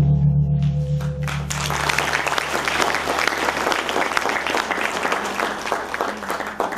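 A large hanging gong struck once with a padded mallet, its low hum ringing for a little over a second; then audience applause breaks out and carries on until near the end.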